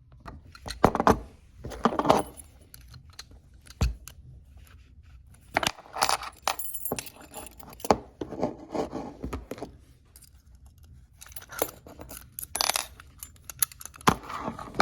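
Irregular metallic clinking and rattling from a just-opened ABUS disc padlock and its steel lock picks being handled, in several short clusters.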